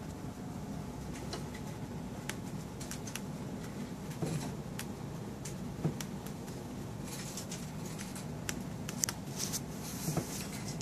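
Chinchillas moving about their cage, making scattered light clicks, taps and short rustles that come more often in the second half, over a steady low hum.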